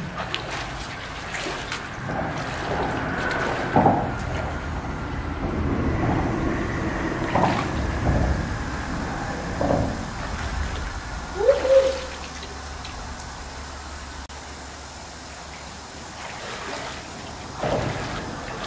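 Water splashing and sloshing as hands feel around in a shallow stream bed for river clams, over the running stream, with irregular sharper splashes. A short rising squeak about two thirds through, and near the end splashing steps as she wades through the water.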